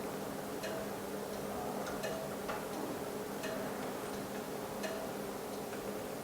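Steady electrical hum of a phone-screen laminating machine, with short light ticks coming about once or twice a second at uneven spacing.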